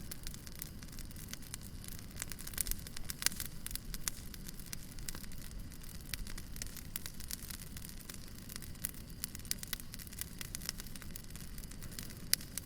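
Wood fire crackling: a steady stream of small sharp pops over a low rumble of burning, with a few louder snaps, one near the end.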